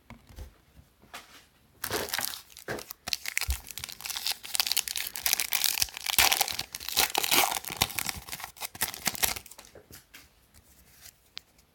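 A trading-card pack's wrapper being torn open and crinkled by hand. A dense run of tearing and crackling starts about two seconds in and dies away near the end, leaving a few faint ticks.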